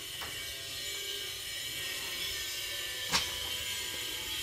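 A single sharp knock about three seconds in, as long PVC pipes and debris are handled during a yard clean-up, over a steady high-pitched hiss.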